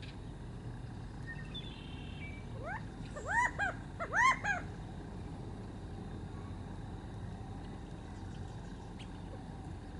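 California quail calling: a short run of about five quick arched notes, each rising and falling, about three to four and a half seconds in, over a steady low background rumble.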